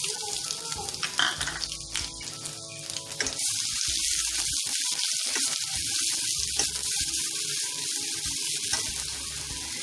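Ginger-garlic paste sizzling as it fries in hot oil with mustard seeds and cumin in a kadhai, stirred with a metal slotted spoon. The sizzle swells into a steady hiss about three seconds in.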